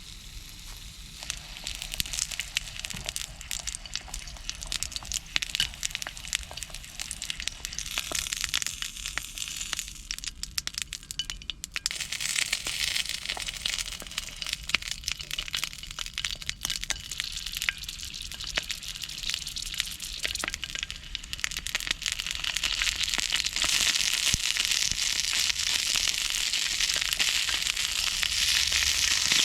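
Food frying in a pan: oil crackling and popping, with a sizzle that thickens about halfway through and grows louder near the end.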